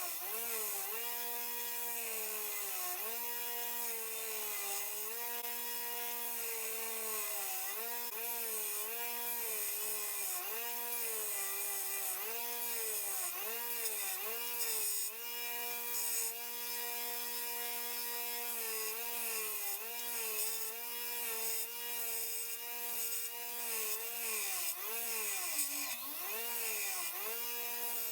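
A power grinder running while a burl wood knife handle is ground down to the tang. The motor's whine dips in pitch and recovers many times as the work is pressed against the abrasive, with a rasping hiss of wood being ground.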